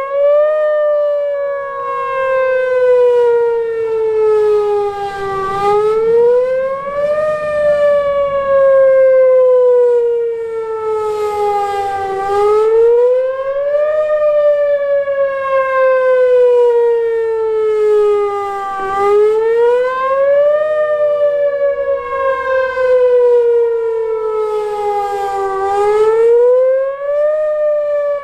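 Whelen Vortex electronic outdoor warning siren sounding a wail in its weekly test. The pitch climbs quickly in about a second, then falls slowly over five or six seconds, and the cycle repeats about every seven seconds.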